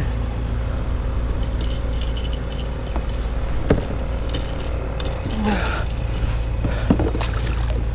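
Steady low rumble of water and wind on the microphone while a hooked fish tows a fishing kayak, with a few sharp clicks and knocks from the rod, reel and kayak gear.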